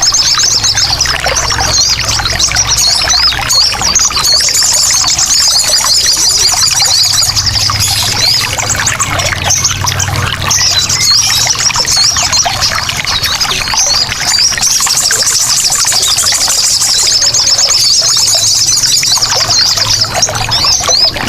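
Sogon birds calling in a rapid, high, chattering run, breaking off briefly a couple of times, over steady trickling water.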